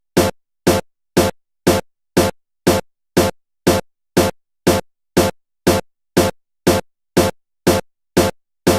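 Electronic background music: a looped drum-machine beat, identical short hits about twice a second with silence between them.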